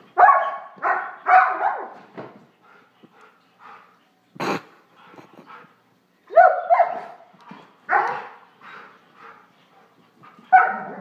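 German Shorthaired Pointer barking in short runs of one to three barks, excited play barks at a flashlight spot it is chasing. A single sharp knock comes about halfway through.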